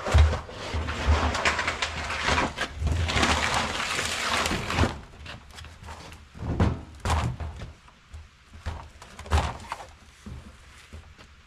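Heavy drums of scrap metal being slid and set down in a pickup bed: a long scraping with heavy thumps for the first few seconds, then several separate thuds and knocks.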